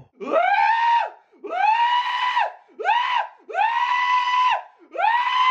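A high-pitched voice giving five long, wordless cries in a row. Each slides up into a held high note and then drops away.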